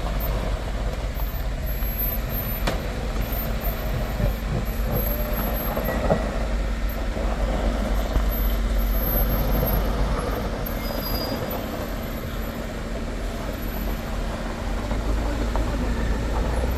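Light truck's diesel engine running under load as the truck, after bottoming out in deep mud ruts, drives on through them; a steady drone that grows a little louder about halfway through.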